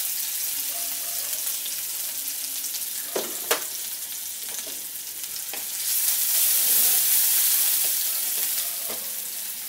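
Chopped onions sizzling in hot oil in a metal kadai, a steady hiss that grows louder for a couple of seconds past the middle while a wooden spatula stirs them. Two sharp clicks a little over three seconds in.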